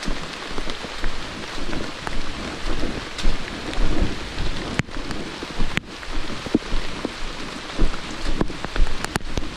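Walking a wet, muddy forest trail with a handheld camera: a steady rain-like hiss with irregular low thumps and a few sharp clicks.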